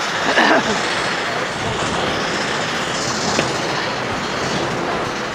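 Small steam launch under way, its steam engine and paddle wheels running with a steady rushing noise of steam and churned water.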